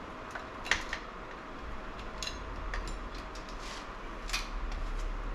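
Scattered light clicks and clinks of metal engine parts being handled on a bench, with a sharper click about a second in.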